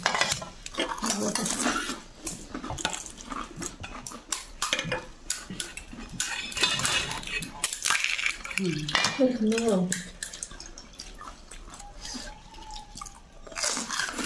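Steel spoon clinking against steel plates and a steel pot as pani puri shells are handled and dipped into the spiced water, with pani dripping back into the pot. A short stretch of voice comes near the middle.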